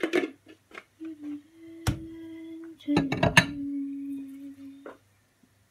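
A person humming two long, low, nearly steady notes, the second slightly lower, with a sharp knock about two seconds in and a quick cluster of clattering knocks about three seconds in.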